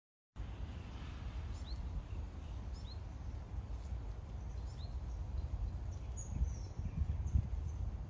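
Outdoor ambience that starts abruptly: a steady low rumble, with a few short, high, rising chirps scattered through the first five seconds.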